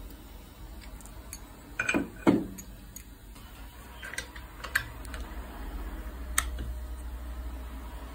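Small metal clicks and knocks from watchmaker's hand tools on a wristwatch case at the bench: two louder knocks about two seconds in, then a few scattered sharp clicks, over a faint steady hum.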